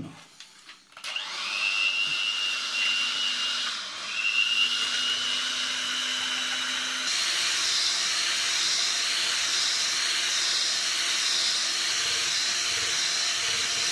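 Electric hand mixer whipping liquid cream in a glass bowl. The motor starts about a second in with a rising whine, dips briefly near four seconds, then changes tone about halfway through and runs on steadily.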